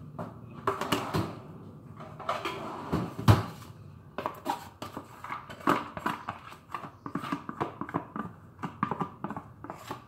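Wooden spoon tapping and scraping a plastic food container, knocking chopped onion and garlic into a cooking pot: a run of irregular knocks and clatters, loudest about three seconds in, then many quick taps.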